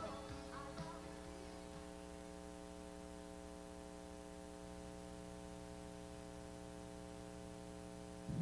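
Faint, steady electrical mains hum with a ladder of even overtones, left over on the soundtrack once the music has died away in the first second.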